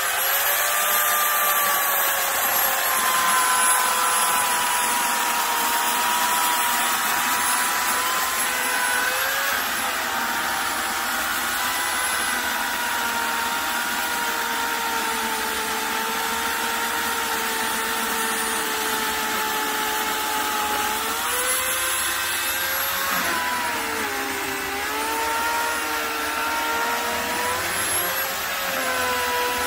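Homelite 12-amp corded electric chainsaw running steadily, cutting through the base of a fallen pine trunk with a continuous high motor whine. From about 21 s in, the whine sags and wavers as the chain bites under load.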